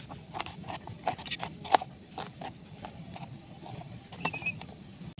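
Kitchen knife chopping green bell pepper on a plastic cutting board: irregular light taps, several a second, with one louder knock a little under two seconds in; the taps thin out in the second half.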